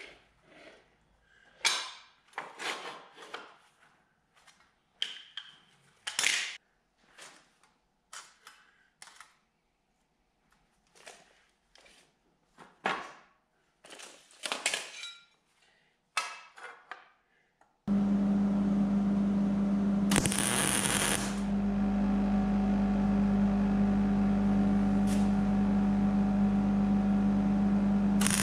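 Metal clinks and knocks as magnetic welding squares and a clamp are set on a steel hatch frame. About two-thirds of the way in, a steady machine hum with a low tone starts, with two short bursts of crackle over it.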